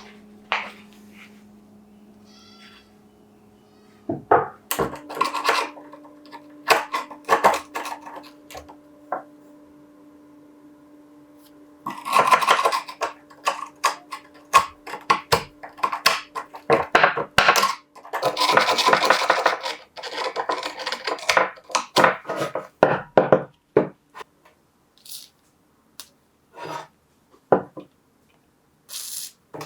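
Metal clinks, taps and scraping as rusty steel pincers are handled and worked on, with two denser stretches of scraping. A faint steady hum runs under the first half, then stops.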